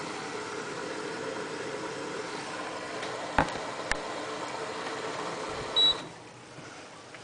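AEG front-loading washing machine running with a steady hum in its service test cycle. Two sharp clicks come past the middle, then one short high beep, after which the steady sound drops away.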